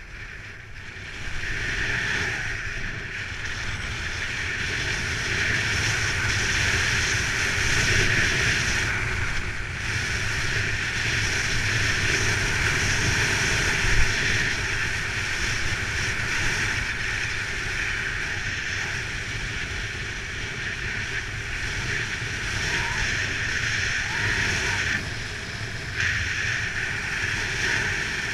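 Skis hissing and scraping over packed, groomed snow on a continuous downhill run, with wind buffeting the action camera's microphone. The rushing picks up about a second in and stays steady.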